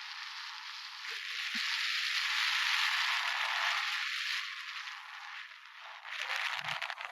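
Strong wind driving sand across a dune: a steady hiss of blowing grains that swells and eases, with a rapid crackle near the end.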